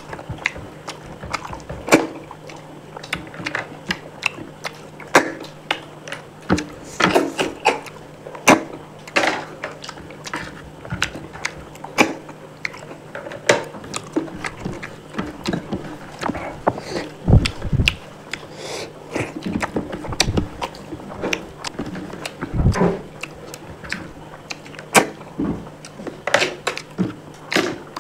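Close-up eating sounds of a person working through spicy snail curry: irregular wet clicks, smacks and sucks, with a few low thuds. A faint steady hum runs underneath.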